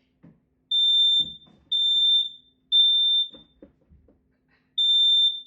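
Kidde KN-COSM-IBCA smoke and carbon monoxide alarm sounding its fire alarm: three loud, high-pitched beeps about a second apart, a pause, then the next set of three begins near the end. This is the temporal-three fire pattern. A few faint handling knocks come between the beeps.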